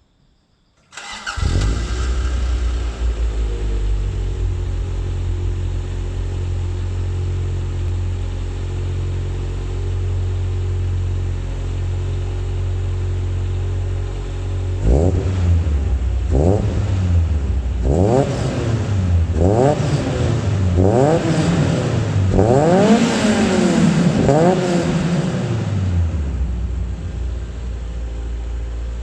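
Toyota AE86's 4A-GE inline-four starts up about a second in and settles into a steady idle, heard through a FUJITSUBO Super EX exhaust manifold and Legalis R single-tail muffler. From about halfway it is blipped seven or eight times, each rev rising and falling back, the later ones higher, then it returns to idle.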